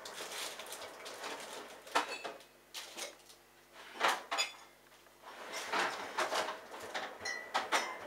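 Bosch Logixx front-loading washing machine drum turning slowly, a polyester dressing gown tumbling and water sloshing in irregular swishes with a few light knocks, under a faint motor hum. This is the wash tumble after the machine has sensed a mini load, before the main wash.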